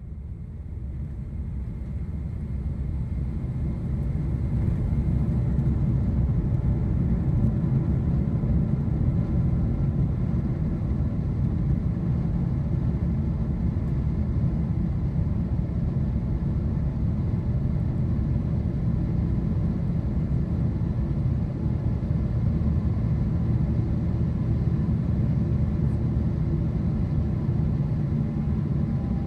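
Boeing 777-300ER's GE90 jet engines heard from inside the cabin, a deep steady rumble that builds over the first few seconds and then holds: the engines spooling up to takeoff power for the run down the runway and the climb.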